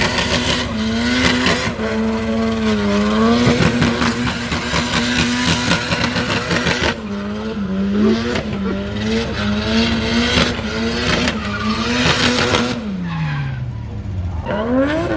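Drift car's engine held at high, steady revs while the car slides sideways, its tyres skidding on the wet track. About thirteen seconds in the revs drop away, then climb again near the end.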